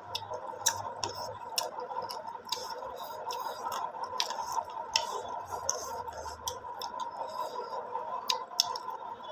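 Eating sounds: irregular small clicks and smacks of chewing, over a faint steady hum.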